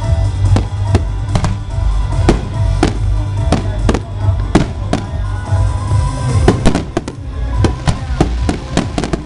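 Fireworks bursting in rapid succession, a few sharp bangs a second and coming thicker near the end, over loud music with a heavy bass.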